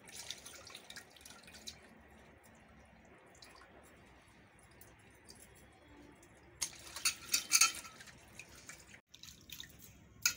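Hands washing raw chicken skin in an aluminium pot of water: irregular splashing and sloshing, a burst at the start and a louder run of splashes about two-thirds through. A sharp click near the end.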